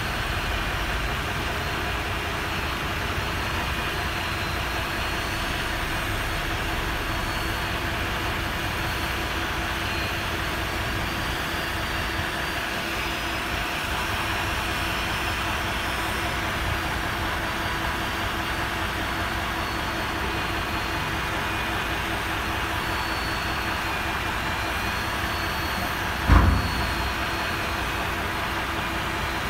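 Isuzu Giga dump truck's diesel engine running steadily while the tipper bed is lowered, with a faint steady whine above it. Near the end comes a single loud thump as the bed comes down to rest on the chassis.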